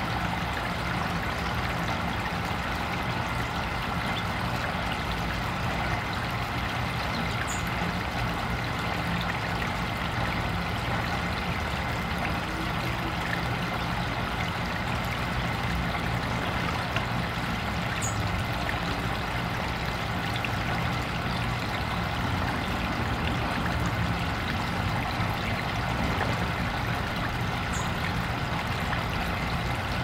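Water trickling and splashing steadily down a small artificial backyard stream, over a low steady hum. A few brief high chirps come through the water sound.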